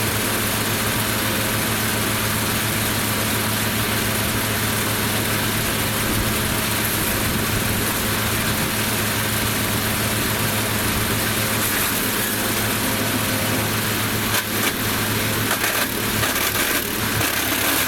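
Lumag Rambo HC15 wood chipper running steadily, its engine giving a constant hum under a wide hiss of chipping. Near the end a run of short sharp cracks comes through as the chipper bites into branches.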